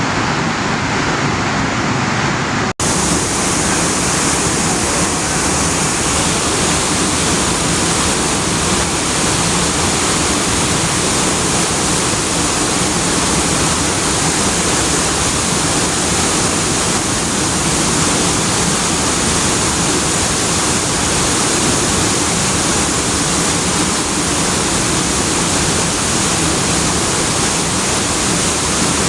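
Steady rushing of river water, a loud even noise, broken by a momentary dropout about three seconds in.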